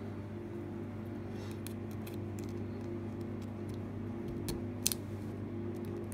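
Light, irregular metallic clicks and scrapes of lock picks working in a Mindy A16-60 padlock's keyway: a dimple pick held for bottom tension and a broken pick manipulating the pins. The clicks are scattered, the sharpest one a little under a second before the end, over a steady low hum.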